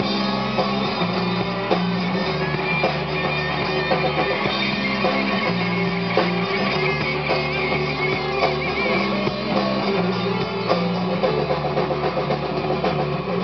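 Live rock band playing: electric guitars strumming over bass guitar and a drum kit.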